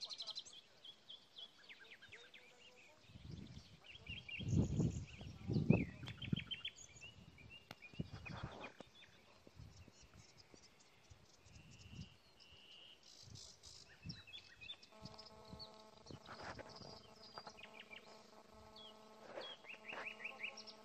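Small birds chirping and calling over and over in riverside scrub. A few low thumps come around four to six seconds in, the loudest moments. A steady hum with several pitches joins about fifteen seconds in.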